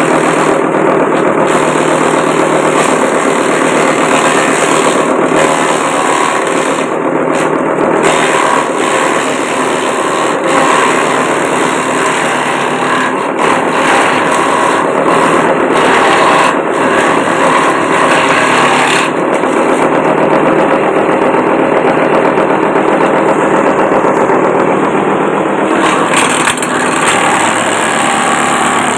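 Homemade wooden chopping machine, driven by a water-pump electric motor, running steadily while long grass stalks are fed in and shredded by its blades.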